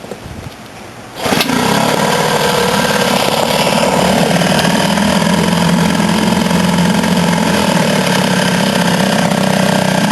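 A freshly rebuilt 1973 Ted Williams (Eska) 7.5 HP two-stroke outboard motor starts suddenly about a second in and then runs steadily at a fast idle. It is running with no cooling-water stream coming out, which the owner puts down to a mud-dauber nest blocking the passage to the water-pump impeller.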